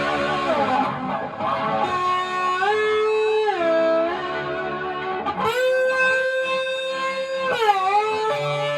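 Electric guitar, a Fender Stratocaster, played with a slide: held notes that glide smoothly up and down between pitches, with a slide up about three seconds in, another about five and a half seconds in, and a slide down near the end.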